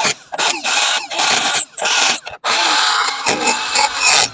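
Cordless die grinder with a non-ferrous burr cutting into an old bronze bushing, carving it out of its bore. It grinds in several loud, high-pitched bursts with brief breaks between them as the burr bites into the metal.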